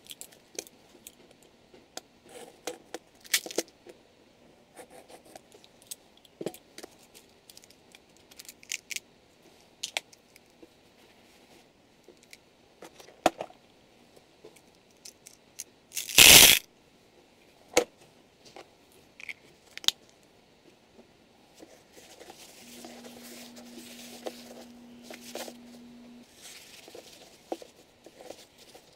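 Small parts and plastic being handled at a workbench: scattered light clicks and taps throughout, and one loud, brief tearing sound about halfway through. A low steady hum runs for a few seconds near the end.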